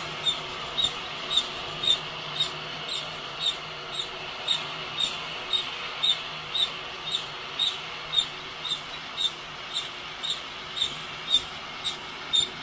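Heat-gun coffee roaster: a stainless pot of beans turned by a cordless right-angle drill squeaks regularly, about twice a second, as it rotates, over a steady rush of air.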